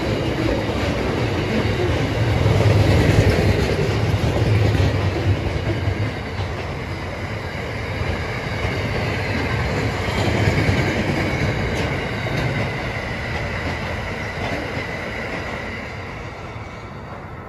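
Container wagons of a long intermodal freight train rolling past, a steady rumble of steel wheels on the rails with some clickety-clack. In the second half a thin, slightly falling high squeal from the wheels runs under the rumble, and it all fades as the last wagons pass and draw away near the end.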